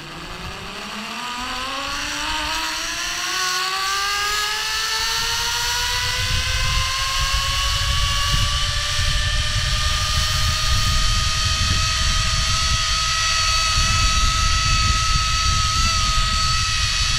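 Zip line trolley pulleys rolling along the steel cable: a whine that rises in pitch as the rider gathers speed, then holds steady at full speed. A low rushing of wind on the microphone builds up under it from about five seconds in.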